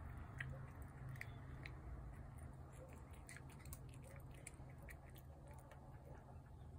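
A cat eating from a plate: faint, irregular little clicks and crunches of its chewing.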